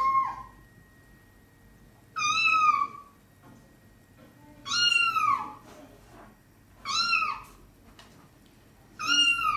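A kitten meowing, played from a television: four high-pitched meows about two seconds apart, each dropping in pitch at the end.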